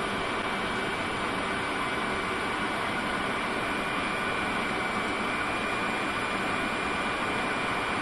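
Steady cabin noise inside a Fokker 100 airliner's cockpit in flight: an even rush of airflow, engines and air conditioning, with a faint steady high whine.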